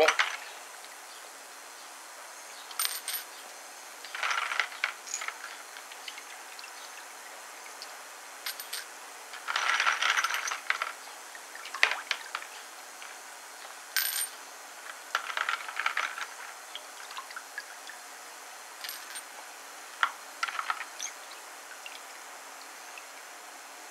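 Brass .308 Winchester cartridge cases clinking against each other in a plastic bowl of rinse water as they are picked out by hand, in a series of short bursts of clinks with pauses between.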